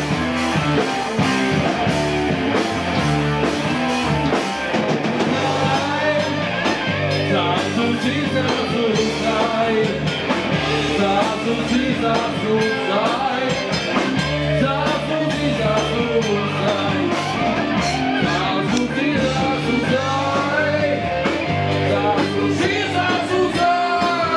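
A live hard rock band playing loud, with electric guitar, bass and drum kit.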